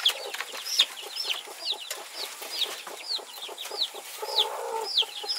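Newly hatched chicks peeping: a steady run of short, high, falling cheeps, about two or three a second. A lower cluck joins about four seconds in.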